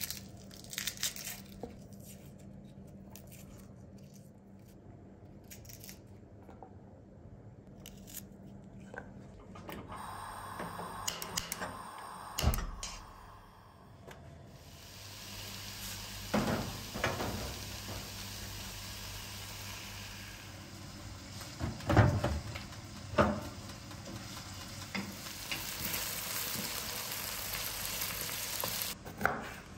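Quiet kitchen handling with small clicks and scrapes of garlic being peeled with a knife; from about halfway, chopped onions sizzle in oil in a frying pan as a wooden spoon stirs them, with a few louder knocks.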